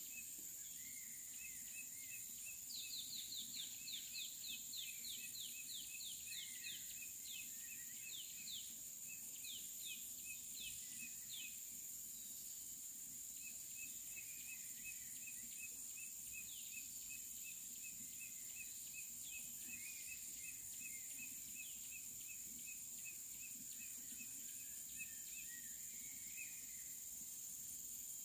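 Forest ambience: a steady high insect drone throughout, with a bird giving a quick series of falling whistled notes for several seconds early on and a short high pip repeated several times a second through most of it.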